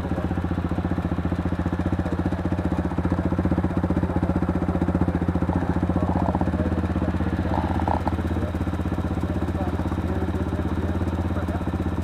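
Small motorcycle engine idling steadily, its pitch holding even throughout.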